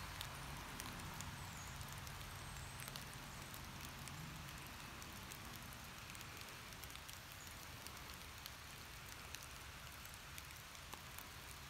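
Faint forest-floor ambience: a steady hiss with many tiny scattered ticks and crackles.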